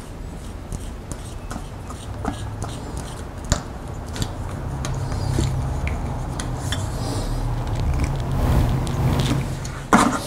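Screwdriver tightening a small screw to fasten a ground wire's crimp terminal on a DC servo motor's end cap: scattered small metallic clicks and scrapes. From about halfway in, a low rumble of handling noise builds as the camera is moved against clothing.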